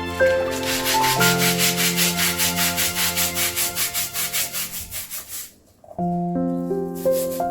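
A stiff brush scrubbing in quick, even back-and-forth strokes, about four a second, which stop about five and a half seconds in.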